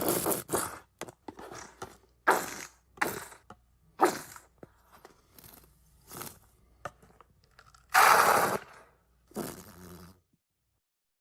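Ketchup squirting out of a squeezed bottle: a string of short, irregular wet squirts and splats, with a longer, louder one about eight seconds in.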